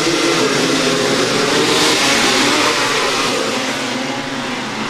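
A pack of off-road racing motorcycles running at high revs together, a dense mix of many engines. It swells about two seconds in, then slowly fades.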